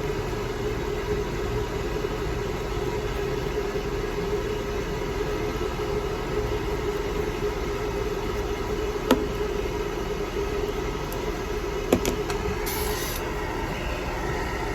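Hair dryer running steadily, a constant blowing noise with a steady motor hum, with two short clicks in the second half.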